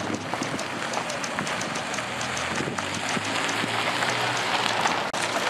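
Footsteps crunching on gravel, an even walking pace of about two steps a second, over a steady outdoor background hiss.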